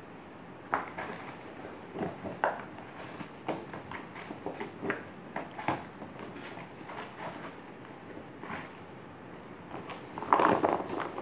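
Cardboard toy packaging and its contents being handled: scattered light taps, knocks and rustles, then a louder burst of cardboard scraping and rustling about ten seconds in as the box is shifted.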